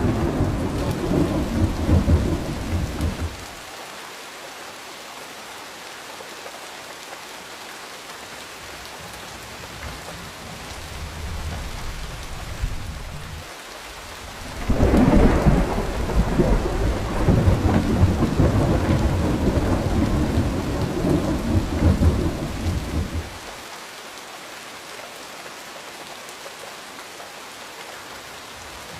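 Steady rain falling, with rolling thunder. A rumble dies away about three seconds in, a fainter one follows a few seconds later, and about halfway through a loud peal rolls on for some eight seconds before the rain is left alone.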